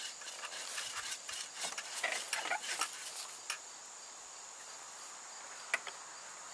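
Steady high-pitched drone of insects, with a scatter of small clicks and rubbing or rustling sounds over the first few seconds and one sharp click near the end.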